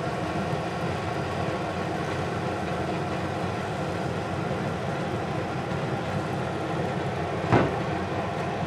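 Pork slices sizzling steadily in canola oil in a frying pan, with a single short knock near the end.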